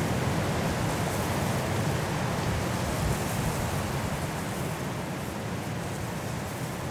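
Strong wind blowing through forest trees in a snowstorm, a steady rushing roar that eases slightly in the second half.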